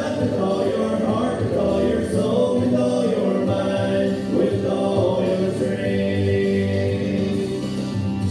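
A man singing a slow worship song over instrumental backing music, holding long notes.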